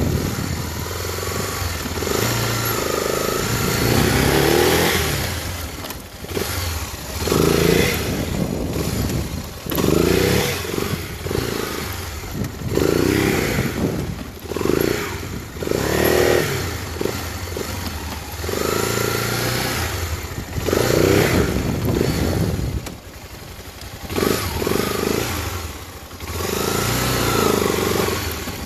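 Honda XRE300's single-cylinder four-stroke engine revved hard and eased off over and over as the motorcycle spins donuts on dirt, its pitch rising and falling every two to three seconds.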